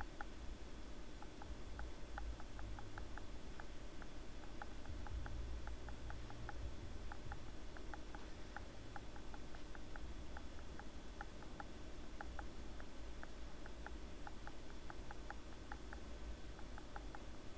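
Faint, irregular light clicking, a few clicks a second, over a low steady background rumble.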